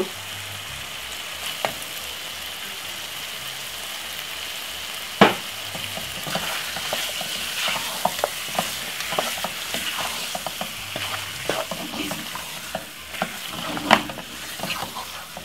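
Browning-coated chicken pieces sizzling steadily in a pot. From about six seconds in, a wooden spoon stirs and scrapes them with many small clicks, and there is one sharp knock about five seconds in.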